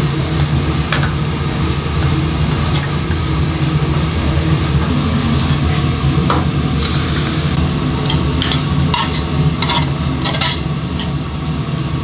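Braised short ribs in sauce sizzling in a pan over a gas burner while a plastic ladle stirs and scrapes, with scattered clinks of the pan and ladle and a brief louder sizzle about seven seconds in. A steady low hum runs underneath.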